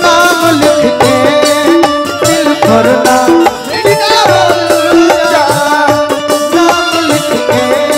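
Bhojpuri stage-show band music: a melody over drums keeping a steady beat.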